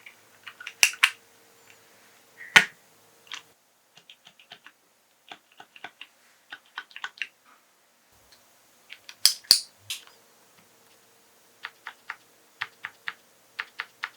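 Irregular sharp plastic clicks and clacks from a Sangeo60 mechanical keyboard with Cherry MX Black switches being worked by hand, with a few louder clusters and a run of about two clicks a second near the end.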